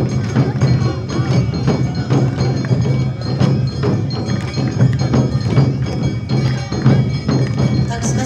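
Awa Odori festival band (narimono) playing its brisk, steady two-beat rhythm: the metallic ringing strikes of the kane hand gong over drums and other percussion.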